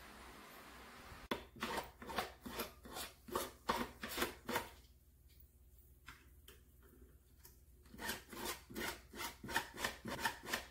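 Hand file rasping back and forth over the end of a metal wire, tapering it to a point so it will pass through a draw plate. Quick strokes, about three a second, with a pause of about three seconds in the middle.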